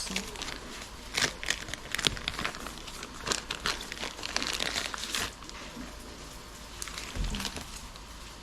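Product packaging crinkling and rustling in quick bursts with sharp clicks as it is handled, going quieter after about five seconds, with one soft knock near the end.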